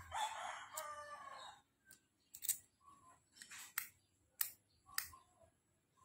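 Key being worked into a motorcycle ignition switch lock: a handful of short, sharp clicks spread over a few seconds. A long animal call sounds over the first second and a half.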